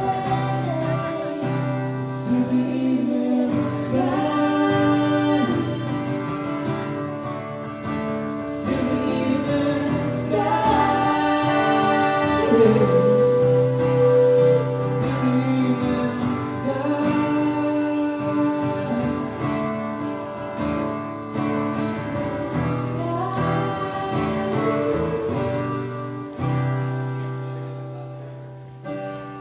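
Live band playing the close of a slow song after the last sung line: guitar, bass and a sustained wordless melody line over held chords. Near the end a final chord rings out and fades.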